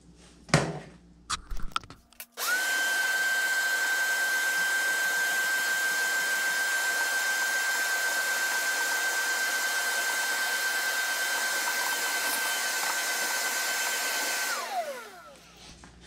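Wet/dry shop vacuum switched on after a few handling knocks, running with a steady high whine as it vacuums dust off a portable air conditioner's coil. About twelve seconds later it is switched off and the motor's whine falls as it winds down.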